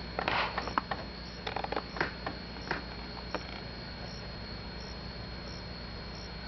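Steady background hiss with a faint high-pitched whine and low hum. About eight small clicks and taps come in the first three and a half seconds, then only the hiss remains. No thunder is heard from the distant lightning.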